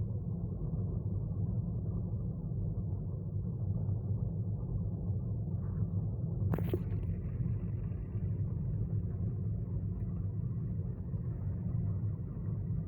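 A steady low rumble, with a single sharp click about six and a half seconds in.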